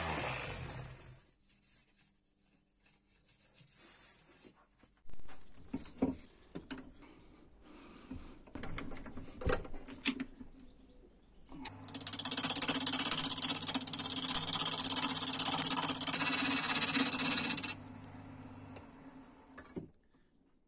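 A palm sander spins down at the start, followed by scattered knocks and handling sounds. About twelve seconds in, a Boston MC 1018 wood lathe runs with a steady hum while a turning tool cuts the spinning sweet chestnut blank, a loud hiss that cuts off after about six seconds, leaving the lathe's hum to fade out shortly before the end.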